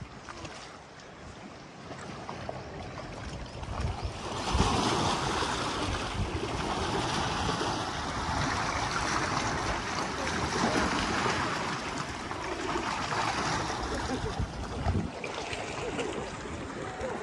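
Sea water washing and splashing against a coral-rock shoreline, a steady wash that swells for several seconds in the middle and eases toward the end, with a couple of low thumps.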